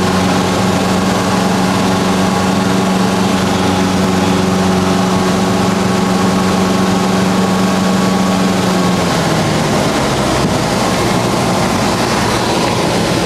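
Cabin noise of a single-engine Cessna in flight: its piston engine and propeller make a loud, steady drone. About nine seconds in, the steady low note drops away and the sound turns rougher.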